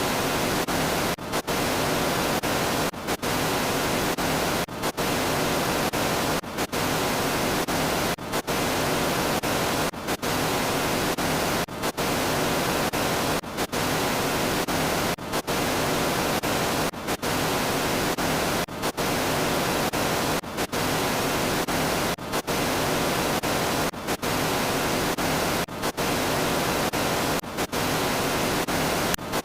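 A loud static hiss, played as a sound effect over and over, with a short dropout about every second and three-quarters.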